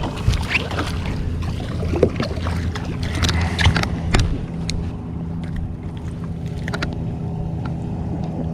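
A boat motor runs with a steady low hum, with scattered sharp clicks and knocks during the first half.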